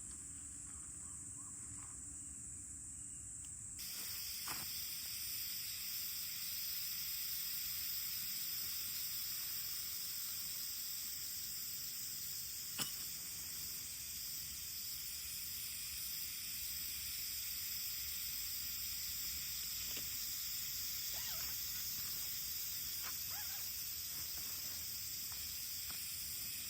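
A steady, high-pitched chorus of insects chirring outdoors, which jumps louder about four seconds in, with a few sharp clicks, the loudest about halfway through.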